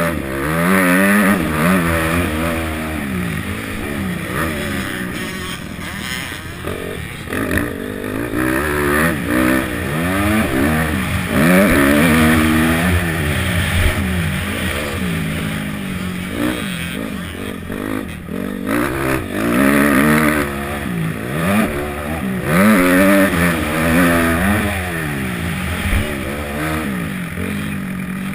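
A 250-class motocross bike's engine, revved hard through the gears. The pitch climbs, drops at each shift or on letting off, and climbs again, over and over, as the bike races around the dirt track.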